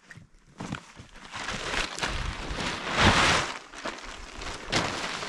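Lightweight nylon tent being unrolled and shaken out over the forest floor: rustling, swishing fabric that swells loudest about three seconds in, with a few short sharp rustles.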